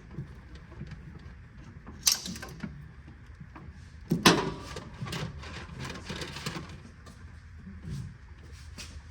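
A sharp knock, then a louder one about two seconds later, followed by a few seconds of uneven clattering and rattling, like parts or tools being handled, over a low steady hum.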